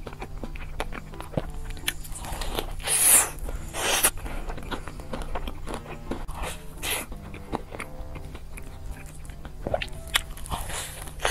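Biting into and chewing a chocolate-coated hazelnut crepe cake: crisp crunches, loudest about three and four seconds in and again near the end, with softer chewing between.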